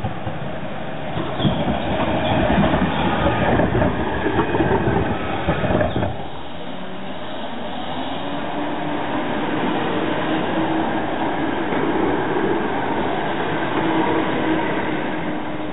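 A low-floor tram passing on its track, a loud, uneven rumble of wheels on rails. About six seconds in it gives way to a steadier tram rumble with an electric traction-motor whine that rises slowly in pitch as the tram pulls away from a stop.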